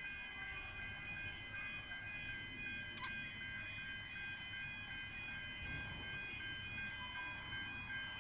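A steady, high-pitched machine whine made of several tones at once, over a low rumble, with a single sharp click about three seconds in.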